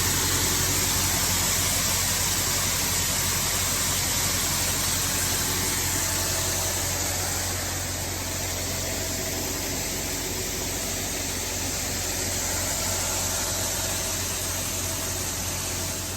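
Farm machinery running steadily while soybeans are unloaded into a grain bin: a low engine hum under a constant hiss.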